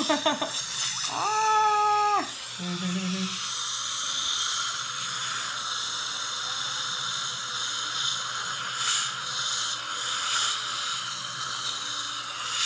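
Dental saliva ejector (suction tube) in a patient's mouth, hissing steadily. About a second in comes a brief held whistle-like tone, followed by a short low buzz.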